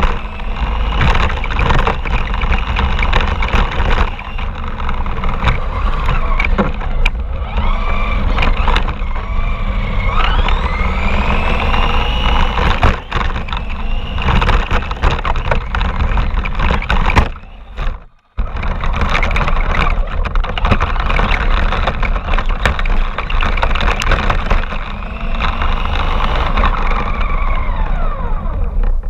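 Radio-controlled car's motor whining up and down in pitch as it is driven, over a steady rumble and constant clattering rattle, heard from a camera mounted on the car. The sound nearly cuts out for a moment about eighteen seconds in.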